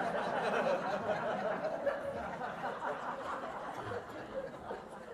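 An audience laughing together, the laughter slowly dying down toward the end.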